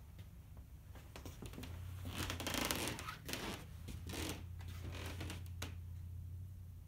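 Rustling and scraping handling sounds with a few light knocks, made by a person stepping up to a wooden fortepiano and putting a hand on its lid. The noise comes in irregular bursts, loudest about a third of the way in, and dies away shortly before the end.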